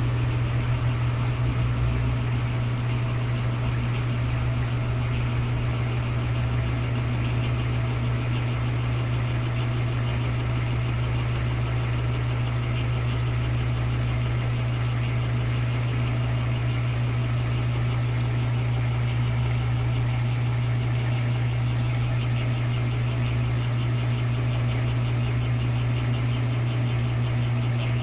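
Electrolux LT13B 13 kg top-load washing machine running under a full load: a steady, loud motor hum with vibration.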